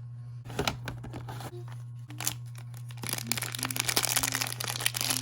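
Plastic packaging being crinkled and handled. It starts with a few sharp crackles about half a second in and becomes dense, continuous crinkling from about three seconds on, over a steady low hum.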